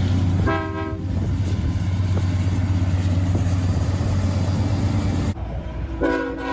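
A locomotive's multi-chime air horn sounds a short blast about half a second in, over the steady low noise of a passing train. The sound cuts off sharply about five seconds in, and another horn blast starts near the end.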